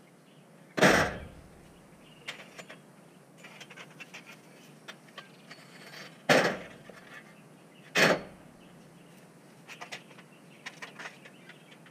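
Pieces of scrap thrown and set onto a steel mesh-sided utility trailer: three loud clanks with a short ring, the last two about a second and a half apart, with lighter knocks and rattles between.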